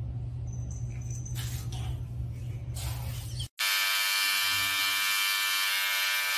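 A low hum with a couple of brief rustles, then, a little over halfway through, a handheld electric trimmer starts a loud, steady, high-pitched buzz that runs on.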